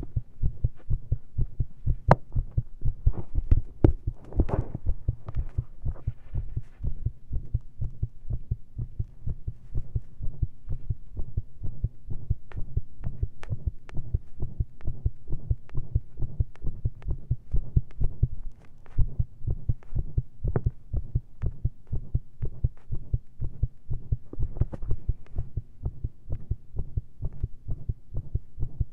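Human heartbeat picked up through a stethoscope with a lav mic, beating fast and very irregularly with skipped beats, after a large dose of caffeine and breath-holding pressure.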